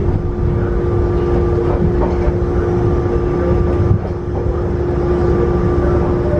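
Yokkaichi Asunarou Railway narrow-gauge electric train running, heard from inside the front cab: a steady whine over the low rumble of the wheels on the rails.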